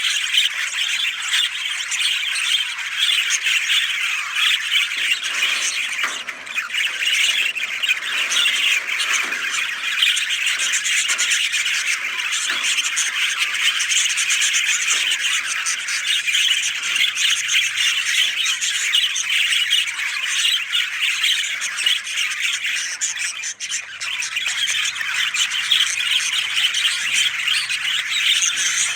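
Continuous dense chatter of many birds squawking and chirping together, with no pause.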